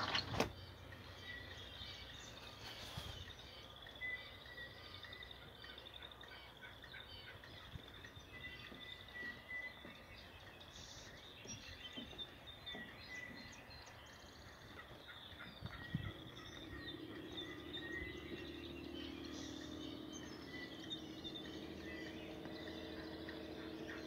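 Songbirds chirping, many short high chirps repeating throughout. A steady low hum joins about two-thirds of the way through.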